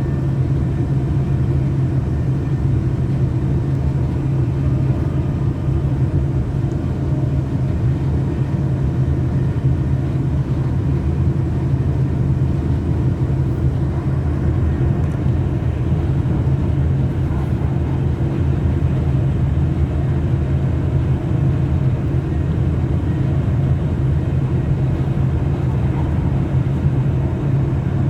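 Class 730/2 electric multiple unit running at speed, heard from inside the carriage: a loud, steady low rumble of wheels on rail with a constant hum.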